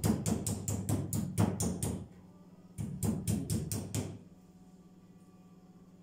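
Wooden meat mallet pounding raw chicken breast slices flat on a wooden cutting board: rapid thuds, about six a second, in two runs with a short pause about two seconds in, stopping about four seconds in.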